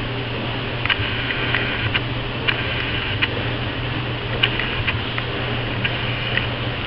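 Small puppy's toenails clicking irregularly on a ceramic tile floor as it walks about, over a steady low hum.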